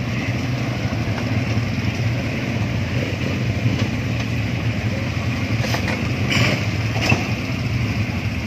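Several quad bike (ATV) engines running as a line of them drives past, a steady low drone, with a few short clicks about six and seven seconds in.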